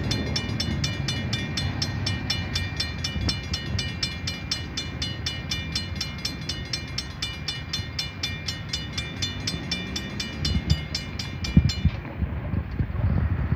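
Level crossing warning bell ringing in rapid even strokes, about four a second, while the barrier arms lift after the train has passed. It stops abruptly about twelve seconds in. A low rumble runs underneath, and a car drives over the crossing near the end.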